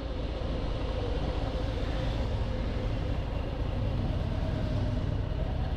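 Harley-Davidson motorcycle's V-twin engine running steadily.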